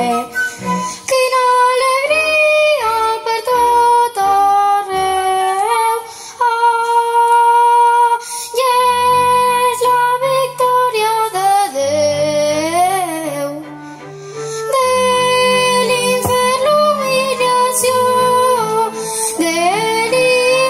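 A young girl singing a slow, sustained melody over an instrumental accompaniment with low bass notes. Some held notes waver in a vibrato.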